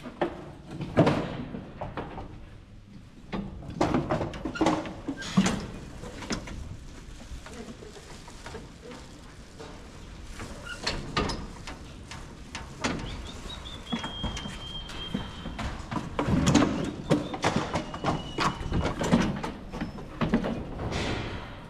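Metal gates and rails of a sheep handling race and scanning crate clattering and knocking as sheep are pushed through, with hooves scrabbling on the slatted floor. Irregular sharp knocks throughout, with a thin high squeak held for a couple of seconds near the middle.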